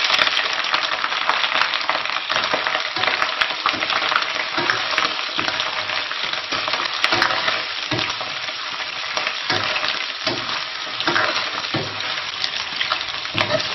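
Duck pieces sizzling in hot rapeseed oil in a wok, stir-fried with a metal ladle that scrapes and knocks against the pan at irregular intervals.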